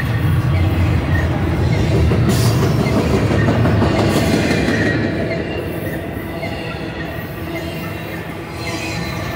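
Intermodal freight train's flatcars loaded with semi-trailers rolling past: a steady rumble of steel wheels on rail, with faint thin wheel squeals over it.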